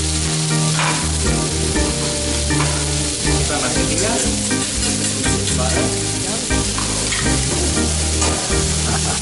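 Fried rice and vegetables sizzling on a hot teppanyaki griddle, with metal spatulas scraping and tapping on the steel plate, over background music.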